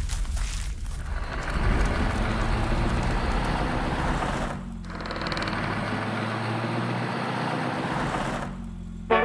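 A motor vehicle's engine running, as a low hum under a rushing, hissing noise. The sound dips briefly about four and a half seconds in, then goes on a little quieter.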